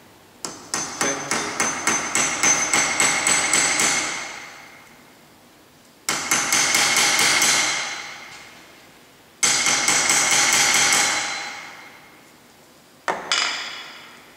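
Small hammer tapping quickly on the cut end of a rivet, peening it over onto a washer to join two cardboard discs, with the work resting on a metal bar as an anvil. The taps ring like metal and come in three runs of a few seconds each, then two single taps near the end.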